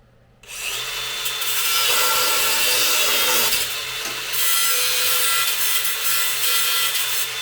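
Power saw cutting through steel exhaust pipe. It starts about half a second in, runs steadily with a thin steady whine, eases for a moment in the middle, and winds down near the end.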